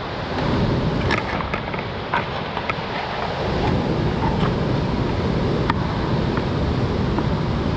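Steady rushing of water with wind buffeting the microphone, and a few faint clicks in the first half.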